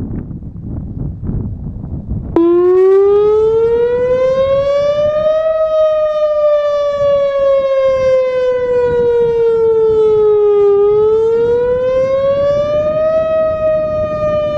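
Outdoor public warning siren sounding a test wail. It starts abruptly about two seconds in, rises in pitch, falls slowly, rises again and holds until it cuts off at the very end. Before it, wind rumbles on the microphone.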